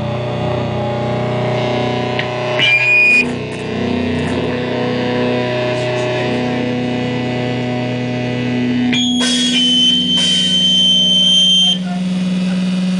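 Distorted electric guitars through amplifiers holding long droning notes, without drums. A high, steady feedback whine rings out briefly about three seconds in and again for about three seconds near the end.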